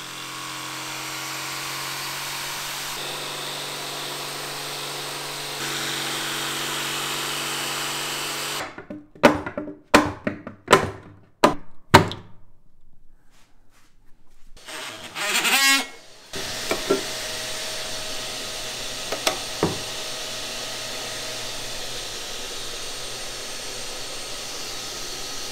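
Bosch jigsaw sawing steadily through the fiberglass top of a bowsprit channel, then about five sharp hammer blows knocking the cut piece loose, then a steady low hum.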